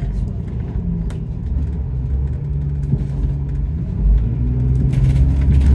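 Bus engine and running gear heard from inside the bus on the move: a steady low rumble that grows louder over the last couple of seconds, with a few brief rattles near the end.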